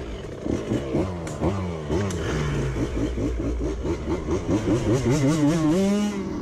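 Off-road motorcycle and quad engines revved in quick blips, the pitch swinging up and down several times a second, with a longer rising rev near the end that cuts off suddenly.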